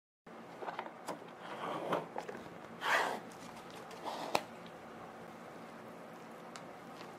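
Paper lid of an instant cup noodle being handled and peeled back, with a brief ripping sound about three seconds in, followed by a sharp click. After that, faint clicks of chopsticks stirring the noodles.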